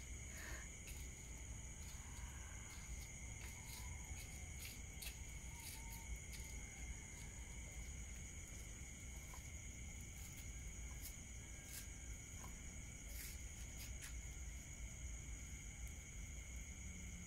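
Chorus of crickets and other night insects: several steady high-pitched trills sounding at once, with a few faint scattered clicks and a low rumble beneath.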